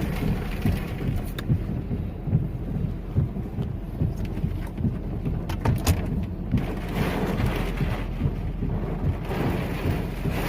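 Storm wind buffeting the microphone: a heavy, churning low rumble with scattered faint clicks.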